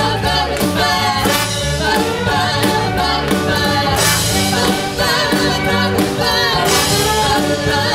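Live big-band swing: a female vocal trio singing together over the band, with a steady beat.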